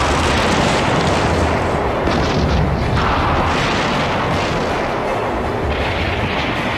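Battle sound effects: a continuous rumbling din of artillery fire and explosions.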